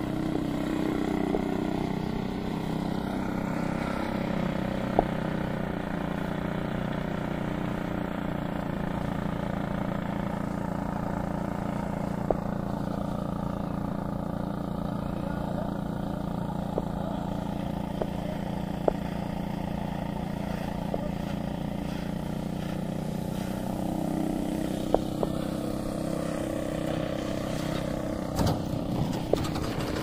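Electric motor and 28x13 propeller of a large RC plane (Seagull Decathlon with a Scorpion 6530 motor) running in flight, a steady propeller drone whose pitch drops for a long stretch and rises again about three-quarters of the way through as the plane comes in to land. A few sharp ticks sound over it.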